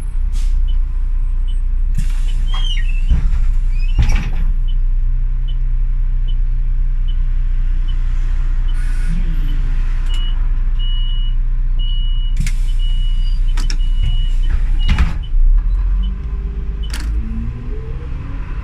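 City bus running with a steady low engine hum, a few sharp knocks and clicks, and a high tick repeating a bit faster than once a second, loudest through the middle.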